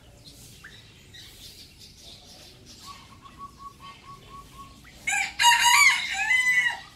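A rooster crows once, loud and harsh, for under two seconds starting about five seconds in. Before it comes a quieter run of about eight short, evenly spaced bird calls.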